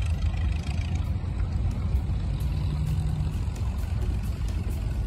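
Engines of vintage hot rods on the beach giving a low, steady rumble, with one engine note standing out for about a second in the middle.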